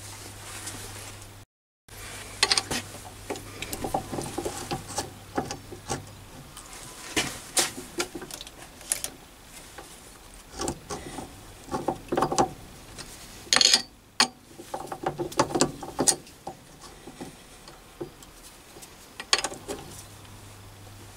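Scattered metallic clicks, knocks and scrapes as a tool-post vice on a mini lathe is handled, adjusted and tightened with a key. A faint steady low hum sits under the start and the end.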